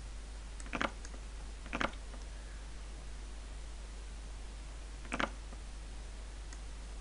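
Three short clicks as chess moves are made in an online blitz game, two about a second apart and a third a few seconds later, over a low steady hum.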